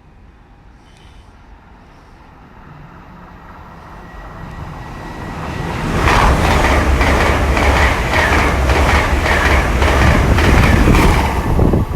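Great Western Railway IET (Class 800-series Hitachi train) passing through at speed. It grows louder over the first six seconds, then runs loud with a low hum and a fast run of wheel clicks over the rails, easing off near the end.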